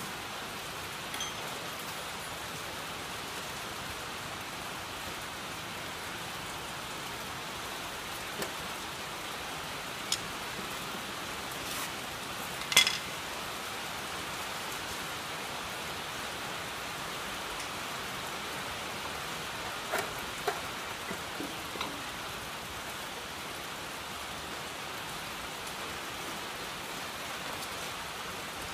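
Steady hiss of rain falling, with a few scattered short clicks and knocks from hands working at the engine-to-gearbox joint; the sharpest knock comes about 13 seconds in, and a small cluster follows around 20 seconds.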